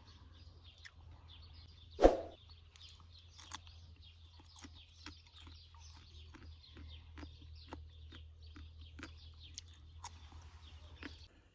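Knife peeling strips off a fresh plant stem, with small clicks and snaps and one louder knock about two seconds in. Birds chirp faintly in the background.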